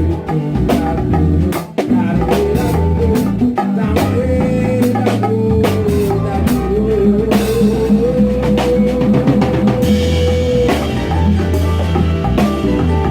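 A band playing an instrumental passage with drum kit, bass and guitar. About four seconds in, a lead instrument holds one long note that bends and wavers before stopping about eleven seconds in.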